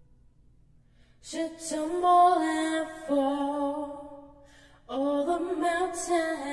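A woman singing unaccompanied in two slow phrases of held notes, the first starting about a second and a half in, the second just before five seconds.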